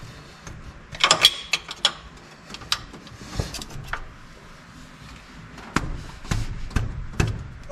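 Scattered clicks, clanks and knocks of a stuck part being worked loose by hand: a quick cluster about a second in, and several more sharp knocks near the end.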